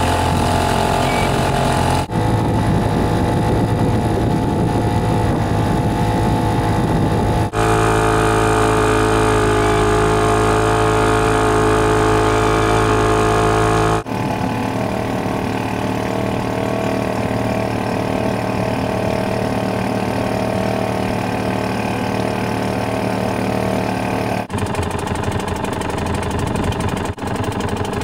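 Small boat engine running steadily at low speed. The tone changes abruptly several times.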